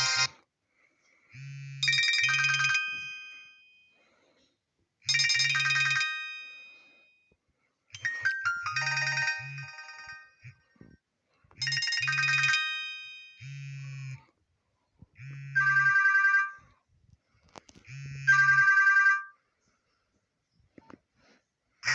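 Nokia X1-01 mobile phone playing one of its built-in ringtones through its small speaker: short phrases of bright, chiming tones, repeated about every three seconds with near silence between and a low buzz under each phrase.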